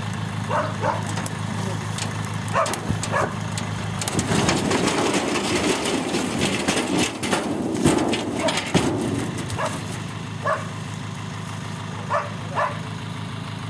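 Tipper truck's engine running while its raised bed dumps a load of birch log rounds. From about four seconds in, the logs slide out and tumble onto the ground in a clattering rush of knocks lasting about five seconds.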